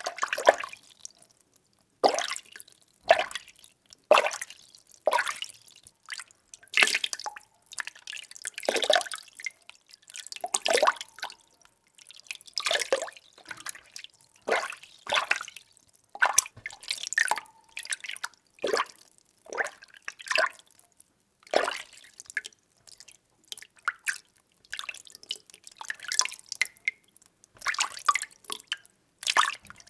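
Water being stirred: irregular sloshing swishes and splashes, one or two a second, with short quiet gaps between them.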